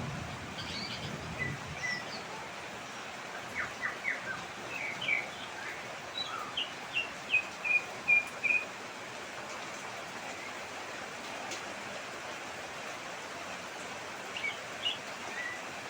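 A bird calling in short, sharp chirps, a quick run of them in the first half and a few more near the end, over a steady hiss of rain.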